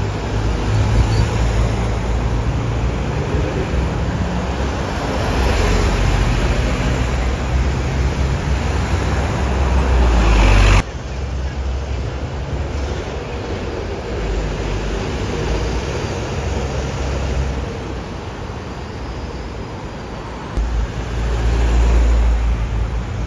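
Double-decker bus engines running and passing in street traffic, a steady low rumble under road noise. The sound breaks off suddenly about eleven seconds in. Near the end a bus engine grows louder as it comes close.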